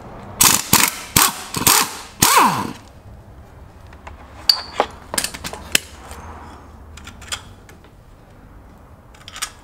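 Air wrench fed by a compressor hose run in about five short bursts, the last one winding down in pitch, undoing the nuts on a truck axle's brake backing plate. A few lighter metal clicks and clinks follow as parts are handled.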